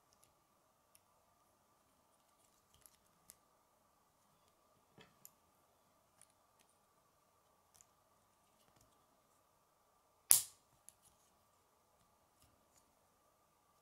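K'nex plastic rods and connectors handled and clicked together: scattered small clicks and light plastic taps, with one loud sharp snap about ten seconds in. A faint steady hum lies underneath.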